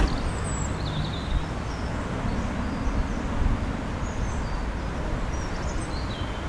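Outdoor ambience: small birds chirping several times over a steady low rumble.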